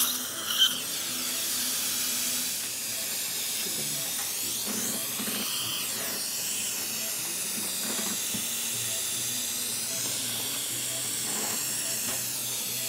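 Steady hiss of dental suction, with the low hum of a surgical implant handpiece drilling the implant site to depth. A couple of short metallic clicks right at the start.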